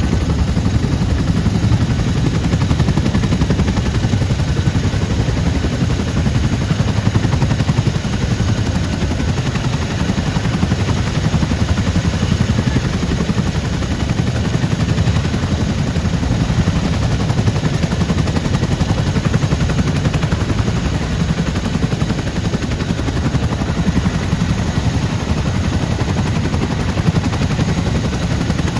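CH-47 Chinook's tandem rotors turning while it sits on the ground, with a steady, rapid, loud chop and a faint high whine from its turboshaft engines.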